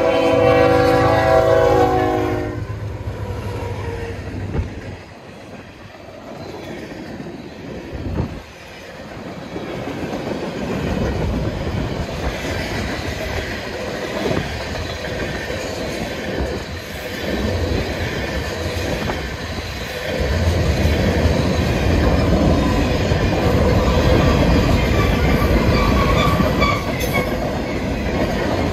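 Freight train passing over a grade crossing. The lead diesel locomotive's multi-note horn sounds for about two and a half seconds, then the diesel locomotives go by. A long string of steel-wheeled tank cars and hoppers follows, rumbling and clacking over the rail joints, and grows louder again about two-thirds of the way through.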